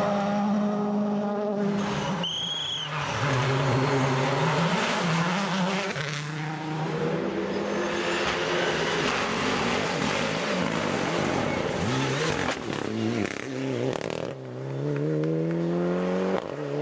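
Rally cars at full speed, a Ford Fiesta WRC and then Mitsubishi Lancer Evolutions, their turbocharged four-cylinder engines revving hard and changing up through the gears. There is a brief high squeal about two seconds in, and a long climb in revs near the end.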